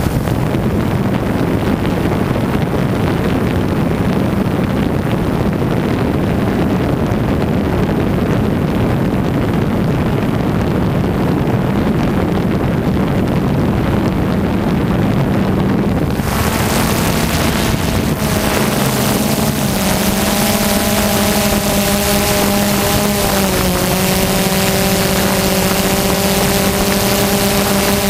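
DJI Phantom quadcopter's motors and propellers running in flight, picked up by the GoPro it carries, with wind rushing over the microphone. About halfway through the sound turns brighter and a steady whine with several overtones comes through, dipping slightly in pitch a few seconds later.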